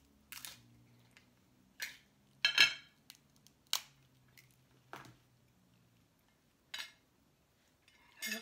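Snow crab leg shells being snapped and cracked open by hand: a series of sharp cracks roughly every second, the loudest a quick cluster about two and a half seconds in.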